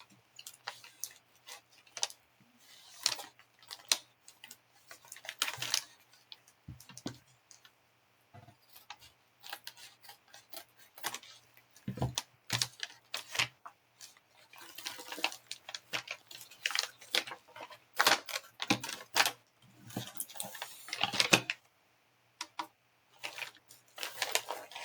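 Hands opening a package and handling plastic coin capsules: irregular clicks, clacks and rustles of hard plastic and packaging.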